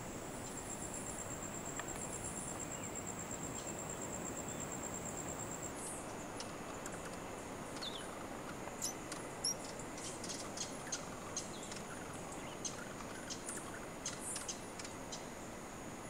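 Rainforest ambience: a steady, high insect trill stops about six seconds in, then come many short, high chirps and ticks from small birds over a soft background hiss.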